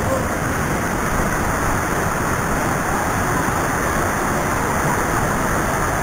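Mountain waterfall about 20 m high: a steady, loud rush of falling water.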